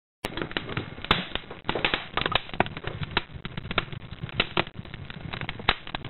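Burning embers crackling, with many sharp, irregular pops over a steady hiss. It starts about a quarter second in after a brief silence.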